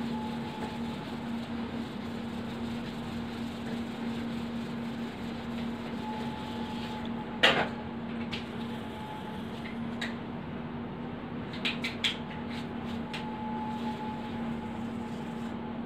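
Steady machine hum filling a small room, with one sharp knock about halfway through and a few small clicks a few seconds later.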